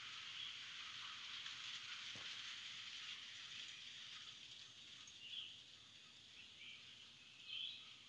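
Faint steady rain with birds calling. Two short bird calls stand out, about five and a half and seven and a half seconds in.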